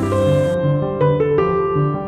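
Background music played on piano or electric keyboard: held chords over a repeating pattern of low notes.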